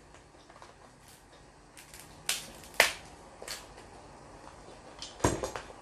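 Cooked snow crab shell cracking as the legs are snapped apart by hand: a few sharp snaps about two to three seconds in, and a louder crack about five seconds in.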